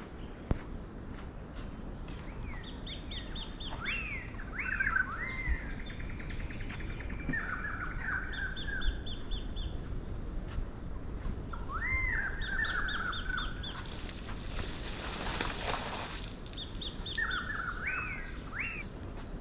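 Birdsong in the morning: repeated loud arching calls that rise and fall into chattering notes, typical of laughing kookaburras, over quicker trains of high chips from another bird and a steady outdoor background; a brief rush of noise passes about two-thirds through.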